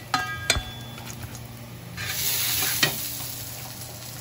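Wooden spatula stirring shrimp in a stainless steel bowl, striking the bowl twice with ringing clinks near the start. About two seconds in, a short hiss lasts under a second and ends in a click.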